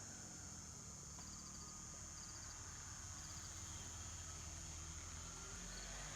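1975 AMF/Harley-Davidson golf cart engine running faintly, with insects chirping in short high trills about once a second.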